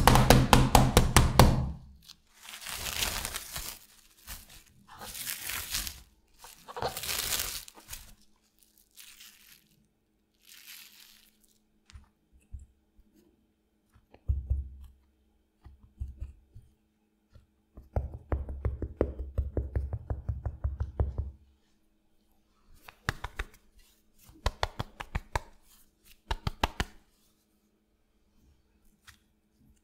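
A meat mallet pounds a thin pork loin slice through plastic cling film in a quick run of strikes that stops about two seconds in, followed by several bursts of the film crinkling and tearing. Later a fork scrapes and taps as it presses the cutlet into a plate of wheat flour. Near the end the floured cutlet is shaken and patted in short bursts to knock off the excess flour.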